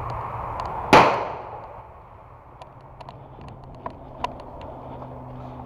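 A single loud, sharp bang about a second in, with a ringing tail that dies away over about half a second, followed by a few faint scattered clicks.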